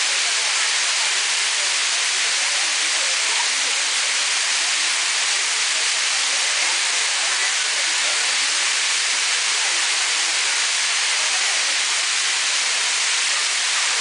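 Waterfall pouring down over rock: a steady, loud rush of falling water and spray, mostly high and hissy, with no change in level.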